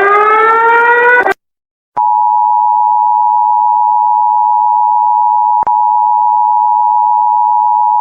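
A buzzy alarm tone, rising slowly in pitch, cuts off about a second in. After a short gap comes the Emergency Alert System attention signal: a steady two-tone beep that holds for about six seconds, with a faint click partway through.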